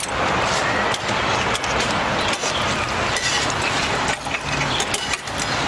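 Oil sizzling steadily in a shallow frying pan over a charcoal fire as a large patty fries, with short clicks of metal tongs against the pan.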